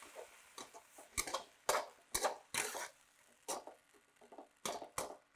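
Metal spatula scraping and clicking against a carbon steel wok as the dim sum filling is stirred and bound with cornstarch slurry: irregular sharp scrapes and taps, a dozen or so.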